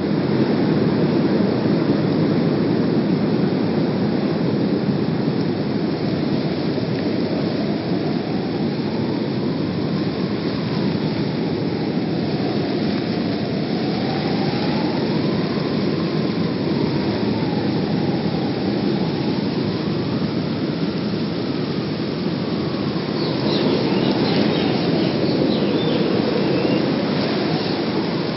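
Train running with a loud, steady low rumble. A faint tone slowly rises and falls over it, and high thin squeals come in near the end.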